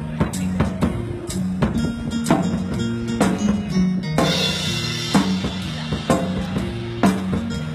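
Drum kit played over music with steady low pitched notes, with regular snare and bass drum strokes and a cymbal crash about four seconds in.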